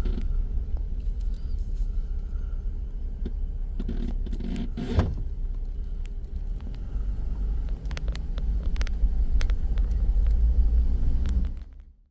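Jeep in motion: a steady low rumble, with a few scattered clicks and rattles, fading out near the end.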